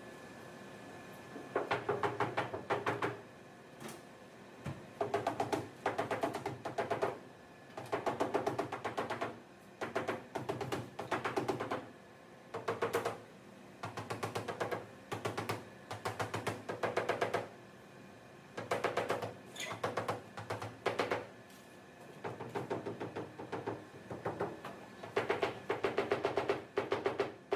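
A mallet tapping rapidly on a car's sheet-metal roof panel, in quick runs of taps about a second or two long with short pauses between, to work out a dent in the roof.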